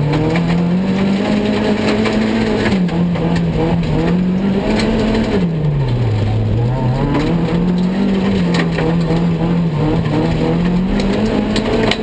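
Autocross race car engine heard from inside the cabin, at racing revs that climb and drop again and again as the driver accelerates and lifts, with the deepest drop just past the middle. A few sharp knocks come through on top.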